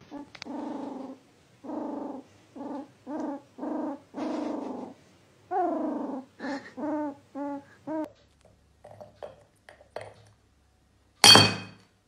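A pet making a series of low, drawn-out calls, the later ones shorter and falling in pitch. Near the end comes a single loud, sharp knock with a ringing tail.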